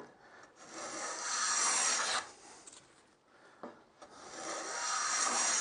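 A bench plane, run on its side along a shooting board, takes two long strokes of about two seconds each across the end of a piece of New Guinea rosewood, with a short click before each stroke. The blade is set parallel and takes full-width shavings.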